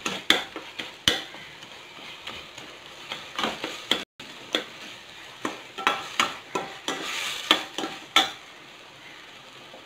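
Perforated steel ladle scraping and knocking against a stainless steel kadai as a thick onion-tomato masala is stirred, over a steady sizzle of frying. The sound cuts out briefly about four seconds in, and near the end the stirring stops, leaving only the sizzle.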